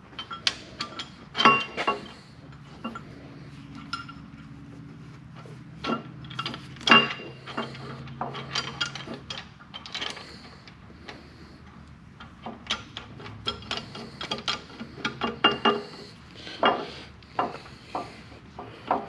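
Irregular metal clinks and knocks as steel nuts and dished self-aligning washers are fitted by hand onto the clamp bolts under a lathe tailstock's base. The loudest knocks come about a second and a half in and about seven seconds in, with a quicker run of clinks in the last third.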